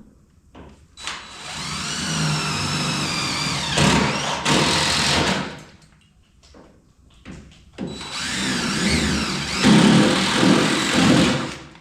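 Power drill boring out spot welds in the steel bedside of a pickup truck, in two runs of a few seconds each. The motor's whine sags under load and gives way to a rougher grinding as the bit cuts through the weld.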